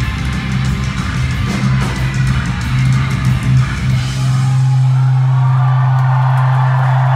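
Live rock music with electric guitar and drums that about four seconds in settles into a single held low note, with crowd cheering rising underneath.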